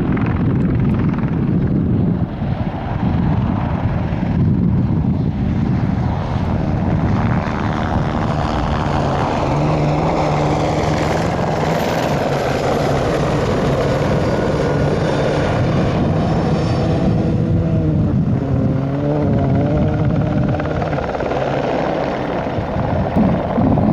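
Turbine helicopter flying close by: a loud, steady rotor and engine noise, with a faint high turbine whine in the middle stretch.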